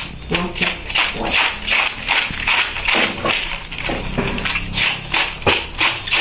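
Kitchen knife chopping cabbage in quick, even strokes, about three to four cuts a second.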